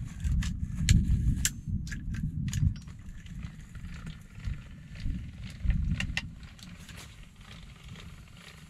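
A crossbow being handled and readied: scattered sharp clicks and knocks of its parts and gear, bunched in the first few seconds and again around the middle, over an uneven low rumble.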